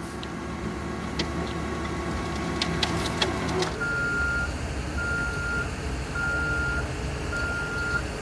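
Heavy construction vehicle's diesel engine running steadily, with a few sharp clicks early on, then its reversing alarm starts about four seconds in, giving one beep about once a second.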